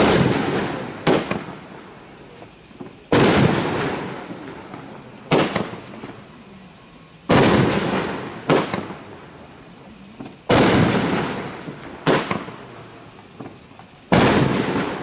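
Firebird 500-gram consumer firework cake firing aerial shots: nine sudden loud bangs, about one every one to two seconds. Every other bang trails off slowly over a second or two; the ones between are shorter and sharper.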